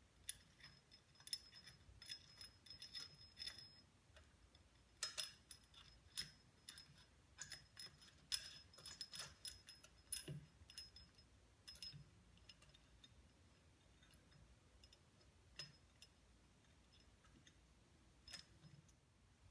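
Faint, scattered metallic clicks and clinks of steel bolts and thick washers being threaded by hand through a belt reduction drive plate into an engine cover, thinning out after about twelve seconds.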